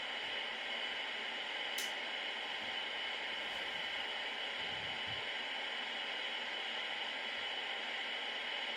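Steady static hiss from a CB radio's speaker, the receiver switched on with no signal coming in: a sign that the unit is powered and its audio stage is working. A brief click about two seconds in.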